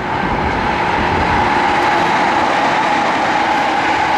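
JR electric commuter trains running past on the tracks: a steady rush of wheels on rails with a steady high tone over it, getting louder about a second in and then holding.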